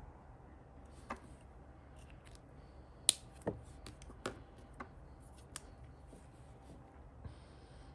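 Sharp clicks and taps of stationery being handled while decorating a paper journal, about seven clear ones spaced irregularly with the loudest about three seconds in, and a brief papery hiss near the end.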